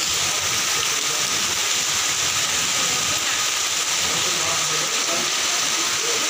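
Steady hiss of heavy rain and rainwater running along a flooded street.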